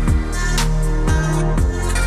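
Background electronic music with a heavy bass line and a drum beat, its kick drums dropping in pitch.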